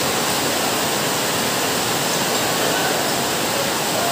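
Steady, loud rushing noise, even and unbroken, with no clear rhythm or pitch.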